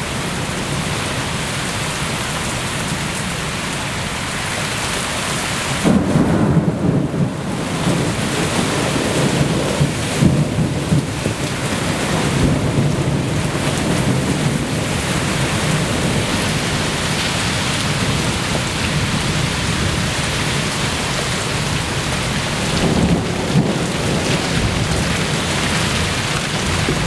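Steady heavy rain with thunder: a clap about six seconds in rolls on as rumbling for several seconds, and a second, shorter peal comes later on.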